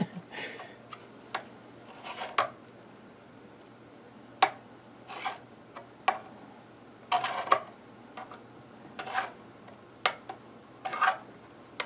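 Fret rocker rocking on a guitar's frets, giving short metallic clicks and taps at irregular intervals about a second apart. It is seesawing on a high fret.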